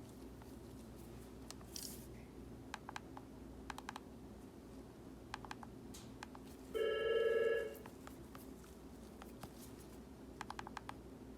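Scattered light clicks and taps, with a loud electronic buzz lasting about a second just past the middle.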